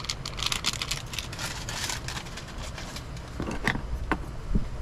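Foil seasoning sachet crinkling as it is shaken out over a pot, for about the first two seconds. Then a few light clicks, over a steady low rumble.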